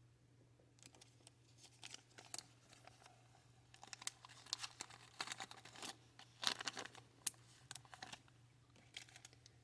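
A small bag of beads crinkling and rustling as it is handled, with many irregular crackles and light clicks, faint, and busiest around the middle.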